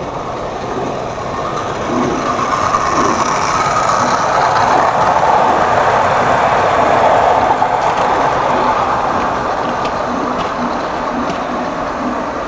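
Train sound effect from a vintage 45 rpm vinyl record played on a record player: the rumble of a passing train that swells to a peak about halfway through and then slowly fades.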